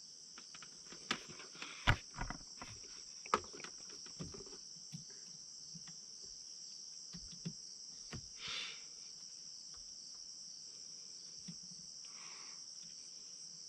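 Crickets chirring steadily and high-pitched. In the first few seconds there are light clicks and knocks as multimeter probes are worked onto a jet ski's starter solenoid.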